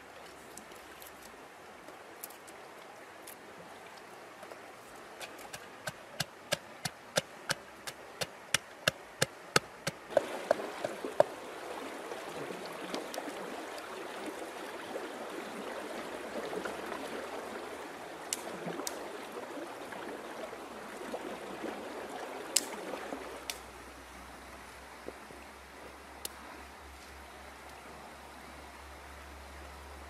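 A wooden pestle pounding chilies in a clay mortar: a run of sharp knocks, about two a second, growing louder. Then running stream water with splashing from about ten seconds in until a little past twenty.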